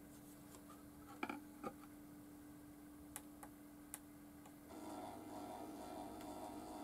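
A few light clicks and knocks as a 7-inch record is set on the platter and a control button is pressed. Then, about two-thirds of the way through, a stepper motor starts turning the belt-driven platter at 33 rpm with a steady hum.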